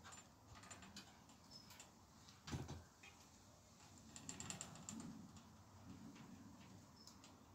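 Faint clicks and light rattling of a bicycle chain being handled, with one sharper knock about two and a half seconds in and a quick run of ticks a couple of seconds later.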